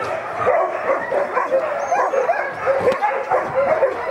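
A chorus of many sled dogs calling at once, their overlapping barks and cries running on without a break.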